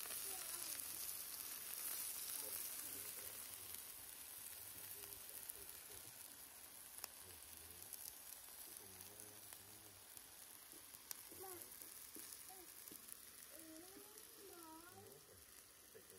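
Angus chuck steaks, onions, zucchini and jalapeños sizzling on a flat-top griddle: a steady, faint hiss that slowly dies down, with a couple of sharp clicks from metal tongs. Faint wavering pitched sounds sit in the background in the second half.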